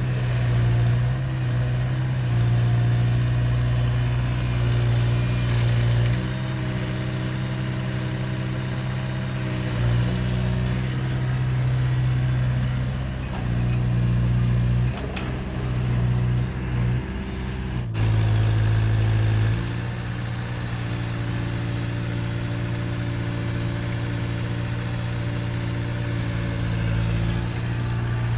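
Diesel engine of heavy construction machinery running, its pitch and loudness stepping up and down several times as the load changes, with a sudden break about two-thirds of the way through.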